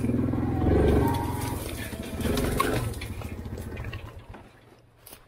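Four-wheeler (ATV) engine running at low speed with brush scraping and clicking against the machine, dying away about four seconds in.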